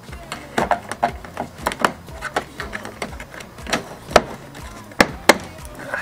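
Plastic trim clicks and knocks as the fog-light surround on a Citroën C6's front bumper is worked loose by hand and pulled off, its clips snapping and rattling irregularly, several sharp hits a second.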